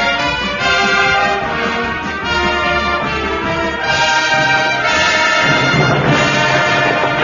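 Orchestral music with a prominent brass section.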